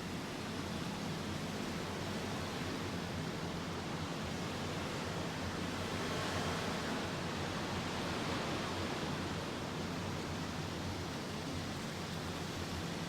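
Surf washing ashore: a steady wash of noise that swells a little and eases off around the middle.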